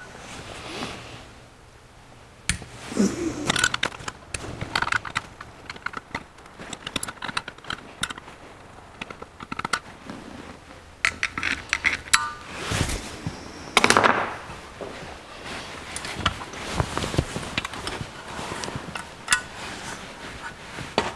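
Irregular small metal clicks, clinks and light knocks of a screwdriver working in a Rochester 4-jet carburetor's cast body, unscrewing the secondary main metering jets, with a few short ringing clinks partway through and the knock of the carburetor body being handled near the end.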